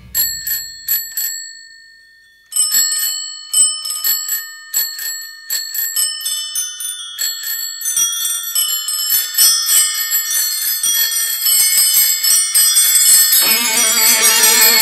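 Bicycle bells ringing as part of a rock music track: a few rings, a short pause, then many bells ringing over one another and building up. The band comes back in near the end.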